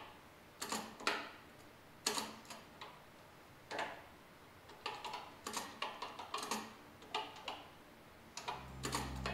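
Commodore PET 4016 keyboard being typed on: irregular key clacks, one or two at a time with short pauses between. Low background music comes in near the end.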